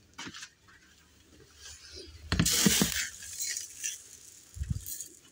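Plastic bags and a plastic feed container being handled: a burst of rustling and light clinks about two and a half seconds in, with smaller clicks and a dull knock near the end.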